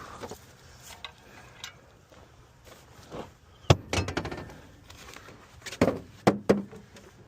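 Shovel work in soil: a couple of sharp thuds with a short scrape about four seconds in, then three more thuds near six seconds.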